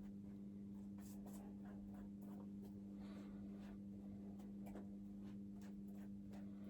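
Faint pen scratching and light handling as marks are drawn on a firestop batt to show where the cable tray passes through, over a steady low hum.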